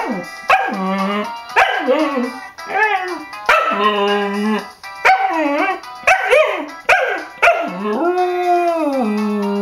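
A dog howling along with a phone ringtone's music: wavering howls that rise and fall in pitch, with several long held notes, the longest near the end, over a ticking beat.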